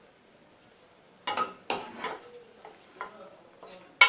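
A spice paste being stirred and scraped around a frying pan: a few scraping strokes start about a second in, with a sharp clink of the utensil against the pan near the end. The masala is almost cooked down.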